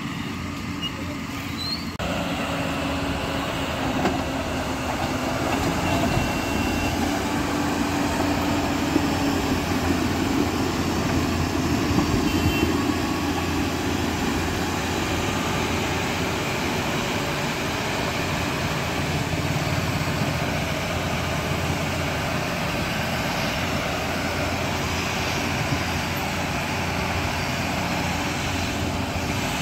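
Heavy diesel construction-machine engine running steadily under load, getting louder about two seconds in.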